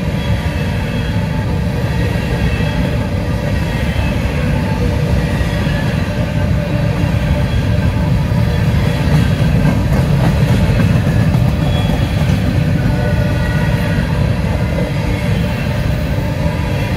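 A slow freight train of covered hopper cars rolling past: a steady rumble of steel wheels on the rail, with faint squeals above it.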